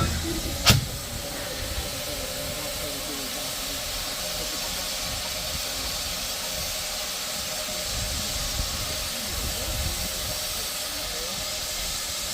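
Steam locomotive giving off a steady hiss of steam, with one sharp click near the start.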